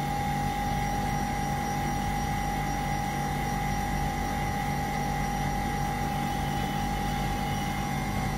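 Freshly-squeezed orange juice vending machine running mid-cycle as it squeezes oranges: a steady high whine over a low mechanical hum, unchanging throughout.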